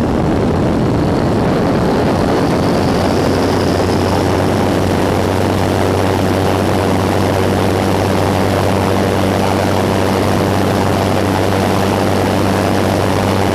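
Pitts Special biplane's piston engine and propeller running steadily at high power, heard from inside the cockpit, with heavy wind rush over the airframe.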